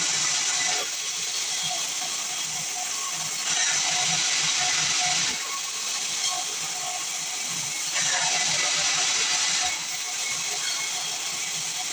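Sawmill machine cutting pine, with a loud hissing cutting noise that swells for a second or two about every four seconds over a steady lower running noise.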